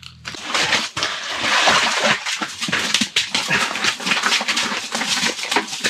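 A freshly caught lake trout flopping on wet, slushy ice, giving a rapid, irregular run of wet slaps and smacks.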